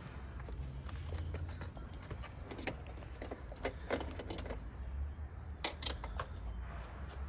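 Scattered metallic clinks and knocks from a wrench and other hand tools working on a motorcycle's wheel and chain-adjuster bolts, several in quick succession, over a steady low rumble.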